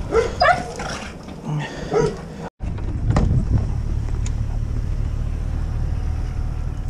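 A netted dog whining and yelping in short, wavering cries. About two and a half seconds in, the sound cuts off abruptly and gives way to a steady low rumble of wind on the microphone.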